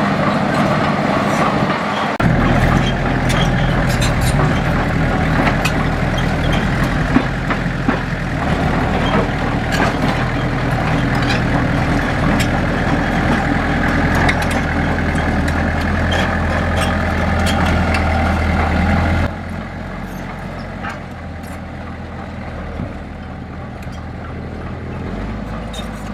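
Heavy earthmoving machine's diesel engine running under load, getting louder about two seconds in and dropping down abruptly about two-thirds of the way through, with scattered metallic clanks.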